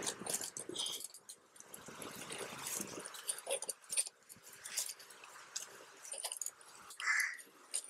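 Metal parts of a motorcycle front fork clinking and tapping as they are handled during reassembly, with a short high whine about seven seconds in.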